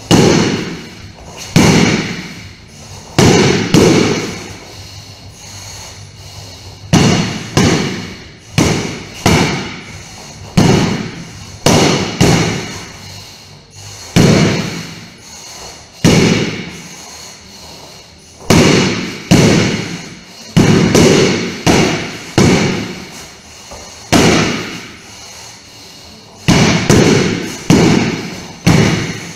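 Training sword striking a hanging heavy punching bag, about two dozen hits in quick pairs and triplets with short gaps between, each a sharp thud that dies away over about a second.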